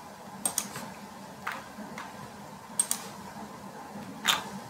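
Computer mouse clicks: a scattered series of single and double clicks, the loudest near the end.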